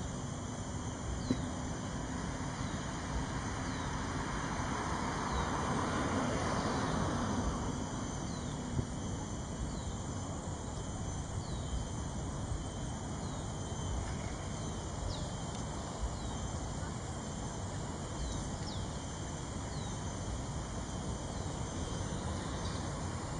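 Outdoor background noise: a steady hiss over a low rumble, swelling louder for a few seconds about four to eight seconds in, with a faint, short, high chirp repeating about every second and a half.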